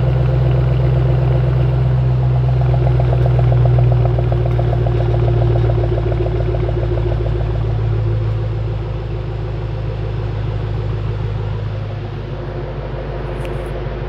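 2013 Ford Mustang Shelby GT500's 5.8-litre supercharged V8 idling through a Borla Attack exhaust, heard close at the tailpipes: a steady, low, even idle that gets a little quieter in the last few seconds.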